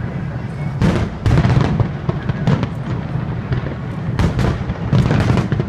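Aerial fireworks shells bursting one after another: about a dozen sharp reports in quick succession over a continuous low rumble.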